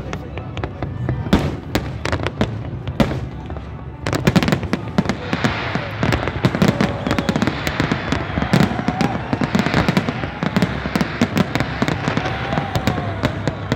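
Fireworks display: a run of sharp bangs from the shells bursting, growing denser and louder about four seconds in, with a thick crackle from the bursts after that.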